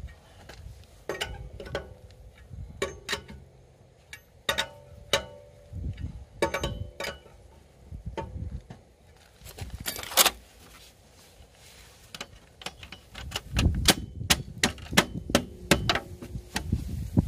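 A steel cross lug wrench clinking against the wheel nuts of a steel car wheel as the nuts are turned and snugged down by hand, with sharp metallic clicks that ring briefly, one much louder about ten seconds in. Near the end comes a quicker run of clicks and low knocks as a plastic wheel cover is pressed onto the wheel.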